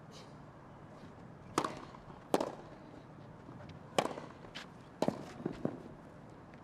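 Tennis ball struck by rackets during a rally: four sharp hits at irregular spacing, with a few smaller knocks just after the last one.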